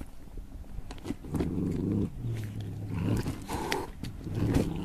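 A cat growling low over its food bowl in three drawn-out bouts, with small clicks of chewing in between.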